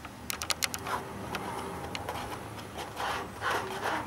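A palette knife mixing oil paint on a palette. A quick run of light clicks in the first second, then scraping, rubbing strokes, the longest near the end.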